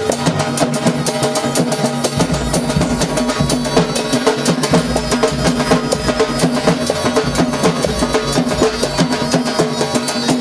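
Rajasthani folk dance music: a dhol drum beaten in a fast, dense rhythm over a steady melody line. A deeper bass comes in about two seconds in.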